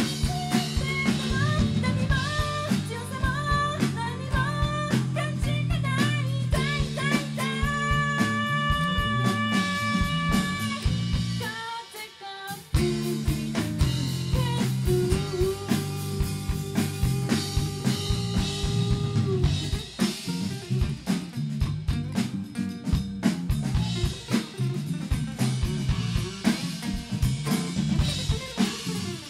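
Live rock band playing: a woman singing lead over a drum kit, electric bass and acoustic guitar. The band breaks off for a moment about twelve seconds in, then comes back in.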